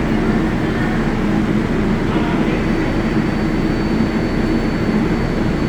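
New York City Subway 7 train in the underground terminal, a steady rumbling hum of the train and station with no break; a thin high steady whine joins about halfway through.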